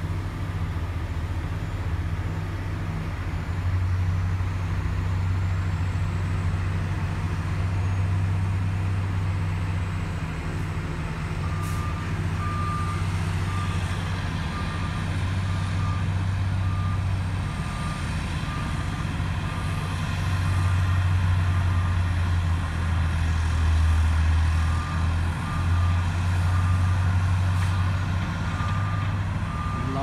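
Heavy diesel road-construction machinery, dump trucks and a cold-milling machine, running with a steady low rumble. From about a third of the way in, a backup alarm beeps over and over as one of the machines reverses.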